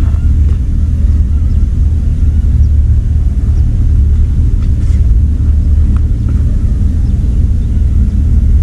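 Strong wind buffeting the microphone: a loud, steady low rumble that gusts up and down.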